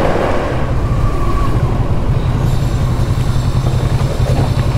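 Motorcycle engine running steadily at low revs with an even, rapid low throb.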